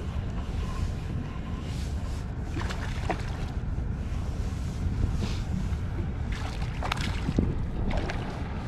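Steady wind rumble on the microphone, with a few short, faint splashes as a hooked fish thrashes at the water's surface while being reeled in.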